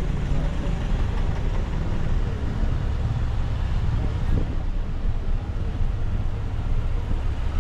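Steady low rumble of a moving vehicle: engine and tyre road noise, without change.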